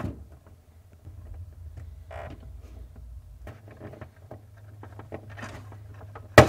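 Plastic wire-harness connectors on a refrigerator ice maker being handled and unplugged: faint rustling and small clicks of the locking tabs, over a low steady hum, with one sharp click near the end.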